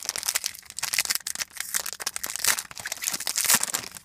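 Crinkly wrapper of a 2012-13 Panini Prestige basketball trading-card pack, torn open and crumpled by hand: a dense, irregular run of crackles and rustles.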